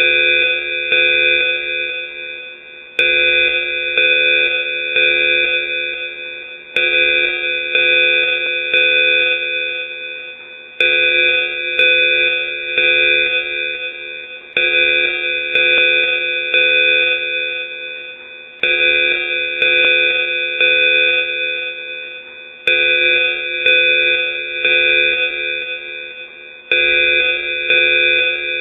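Electronic danger-alarm sound effect: several steady tones sounding together in a loud pattern that starts abruptly about every four seconds and fades over each cycle.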